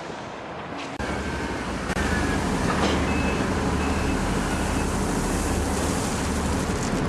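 Heavy machinery engine running steadily with a low drone, cutting in abruptly about a second in and getting louder a second later, with a few faint short high beeps in the middle.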